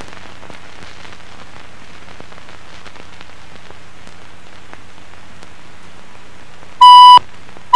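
Steady hiss with a low hum and faint scattered crackling ticks from a blank audio track, then a loud, high steady beep near the end that cuts off after less than half a second.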